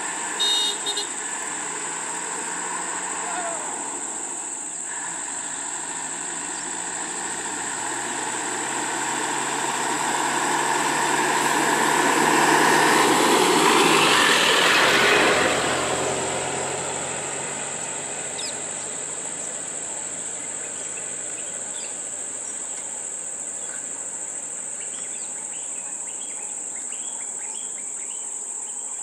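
Steady high-pitched insect drone from the roadside forest, with a couple of short vehicle horn toots about a second in. A road vehicle's engine grows louder, passes around the middle and fades away.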